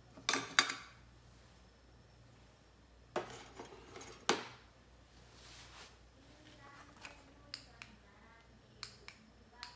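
Metal utensils and cookware being handled: a few sharp clinks and knocks, then scattered light ticks.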